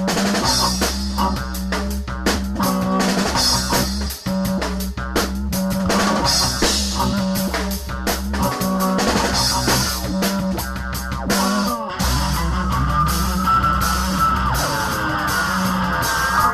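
Band music with a steady beat over a sustained bass line. In the last few seconds a wavering tone glides up and down over it.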